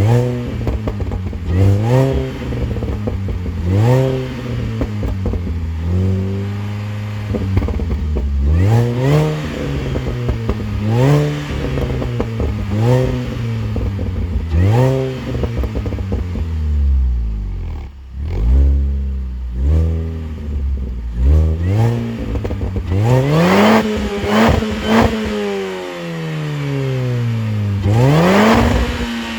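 Mini Cooper S R53's supercharged 1.6-litre four-cylinder engine on its stock exhaust, revved again and again in short rises and falls about every two seconds. It settles lower for a few seconds past the middle, then gets a quick run of blips and one higher rev near the end.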